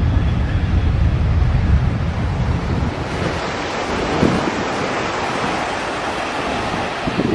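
Wind on the microphone: a loud rushing noise, heavy and rumbling for about the first three seconds, then lighter and hissier.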